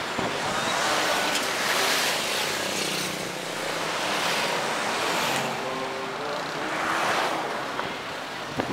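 Road traffic and wind rushing past, heard from inside a moving vehicle: a steady noisy rush that swells and fades every two to three seconds.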